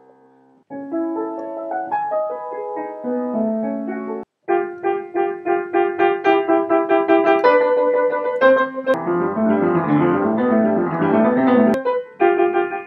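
Piano playing loose melodic phrases of single notes and chords. The music cuts off abruptly and restarts about four seconds in and again near the end, with a denser run of notes just before the second cut.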